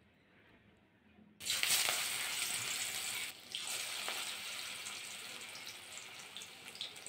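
After a near-silent first second and a half, a spinach and mung dal fritter (bora) sizzles in hot oil in a wok, loudest as it starts and slowly quieting, with a few small pops.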